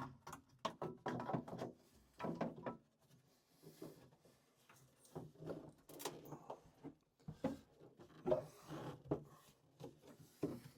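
Irregular clicks, knocks and short scrapes of a new plastic boiler sump being worked into place behind a bracket inside the boiler.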